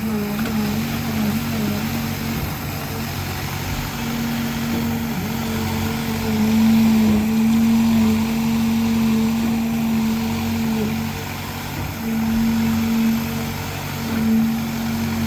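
Heavy engine running steadily, a drone with a hum that breaks off and returns, louder for a few seconds in the middle.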